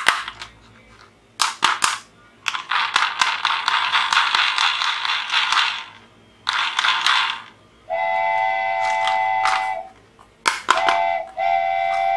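Sound effects of a plastic toy steam locomotive: a few bursts of rapid clicks, about three seconds of steam-engine chuffing, then a steam-train whistle sounding three times, the first for nearly two seconds.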